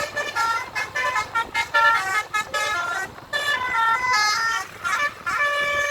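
Bus telolet horn (basuri multi-note horn) playing a tune of short, held notes that step from pitch to pitch several times a second, in phrases with brief breaks.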